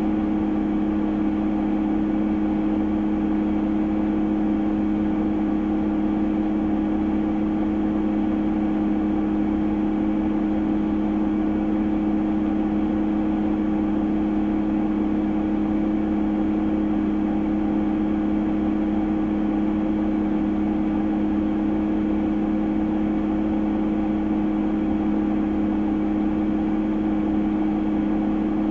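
A vehicle engine idling steadily: a constant low hum whose pitch and level never change.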